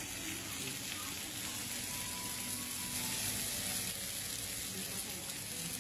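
Beef slices and button mushrooms sizzling on a round tabletop barbecue grill plate: a steady hiss.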